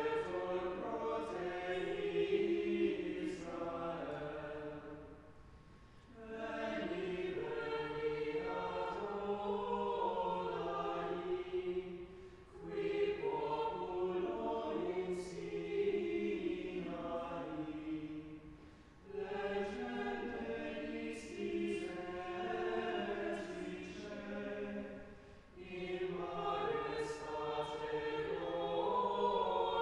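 Choir singing sacred chant in long phrases of about six seconds, with short breaks between them.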